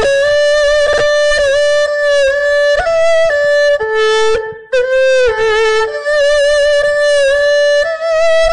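Erhu played solo with the bow: a slow melody of held notes with vibrato and slides between pitches, with a brief break about four and a half seconds in.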